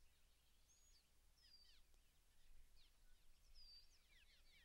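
Faint birdsong: several birds giving short, quick falling chirps and a few higher whistles, over a low steady rumble.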